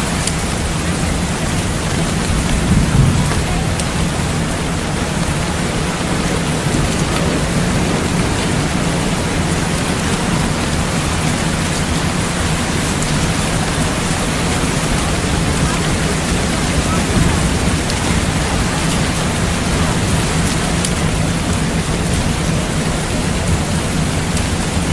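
Heavy rain falling steadily, with a low rumble of thunder underneath that swells briefly about three seconds in.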